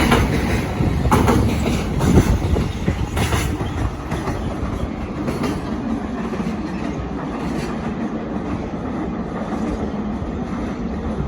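Container freight wagons rolling slowly across a railway river bridge, wheels clacking sharply over rail joints for the first few seconds, then a steadier rumble.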